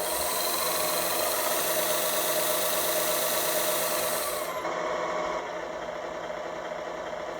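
Tamiya RC truck's electric motor and 3-speed gearbox running with a steady whirring gear whine, dropping to a quieter, lower-toned run about halfway through.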